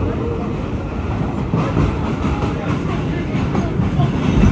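Budd R32 subway car running on the rails, heard from on board: a steady rumble of wheels and running gear, with faint clicks over the rail joints.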